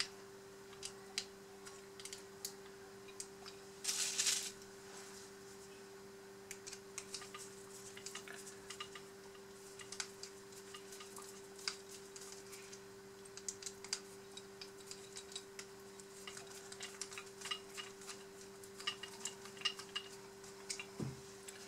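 Small screwdriver and metal parts of a metal RC excavator arm clicking and tapping as it is screwed back together, with a short rustle about four seconds in. A steady low hum runs underneath.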